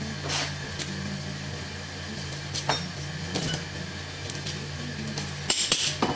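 Knife cutting and scraping through a large scaled fish on a plastic cutting board: a few short scrapes and knocks, then a quick cluster of sharper, louder scrapes near the end, over a steady low hum.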